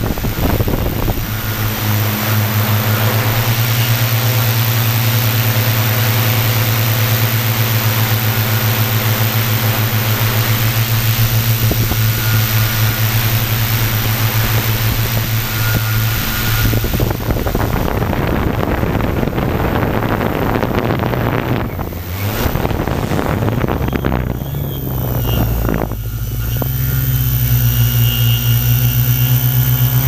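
Quadcopter drone's electric motors and propellers humming steadily, heard close from the onboard camera, with a loud hiss of air over the first half. The pitch wavers and briefly dips about two-thirds of the way through, then settles steady again.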